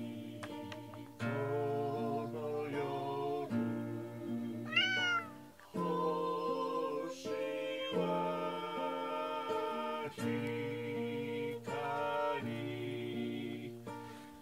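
A hymn being sung to an instrumental accompaniment, in sustained notes. About five seconds in, a cat meows once, a single call that rises and falls in pitch.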